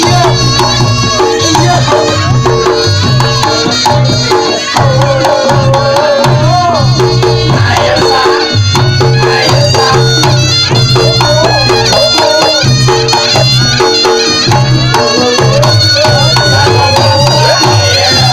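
Loud Reog Ponorogo accompaniment: hand drums keep a beat under steady ringing tones, with a high melody that wavers and bends above them.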